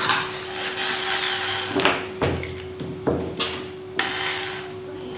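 Spade bit being fitted into a handheld electric drill's chuck: a few sharp metallic clicks and knocks from handling the bit and chuck, over a faint steady hum. The drill motor is not running.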